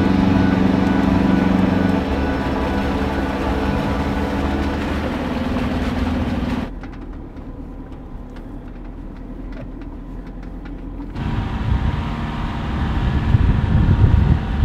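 Toyota HiLux engine droning steadily inside the cab as it climbs a rough dirt road, dropping away about seven seconds in. Near the end, wind buffets the microphone with a gusty low rumble.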